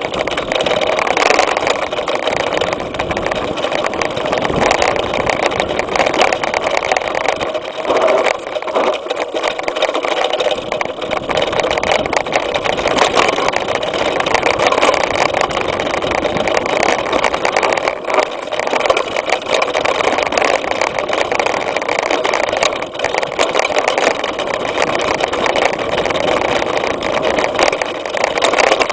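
Mountain bike ridden fast over a grassy trail, heard from a fork-mounted camera: a steady rush of wind on the microphone mixed with constant rattling and clicking from the bike over the rough ground.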